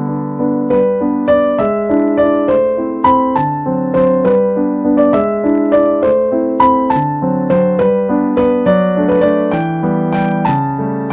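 Background piano music: a gentle melody of single notes over lower chords, about two notes a second.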